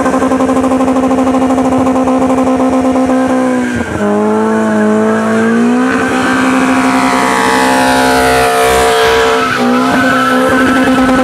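Toyota Corolla's swapped-in 3S-GE four-cylinder engine held at high revs during a burnout, the rear tyres spinning and squealing. The revs drop sharply just before four seconds in and again near the end, each time climbing straight back up.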